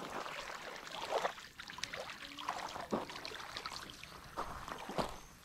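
Small water splashes and lapping at the edge of a lake, coming in short, irregular bursts.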